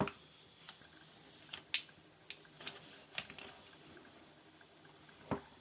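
Handling noise: a series of light, irregular clicks and taps, about eight in all, the sharpest right at the start and a duller one near the end.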